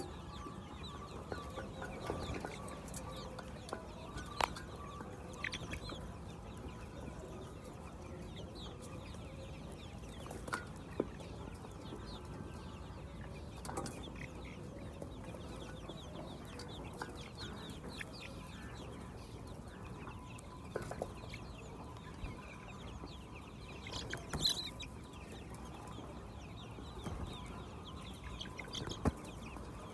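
Laying hens clucking in a poultry house over a steady background hum, with scattered short clicks and knocks.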